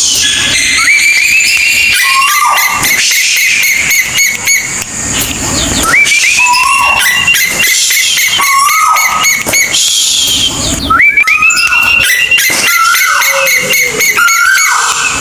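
Calls of the kolik tuwu bird: repeated rising whistles, each paired with short falling notes, over a dense background of fine, high chirps.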